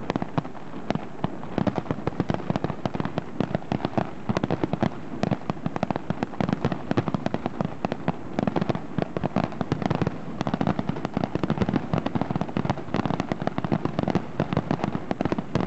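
Fireworks display: a dense, unbroken barrage of aerial shells bursting, many sharp bangs a second.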